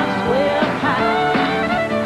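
Live country band playing a song, with a singer's voice over guitars and a steady beat.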